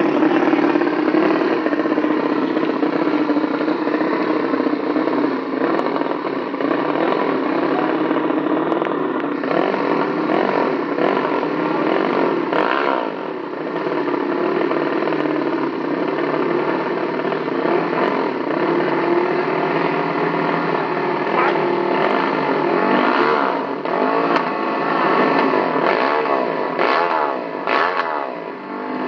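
Small drag-race motorcycles revving at the start line, their engines blipped up and down again and again, with more rapid revving near the end.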